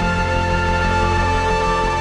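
Background music: sustained held chords over a steady low pulse.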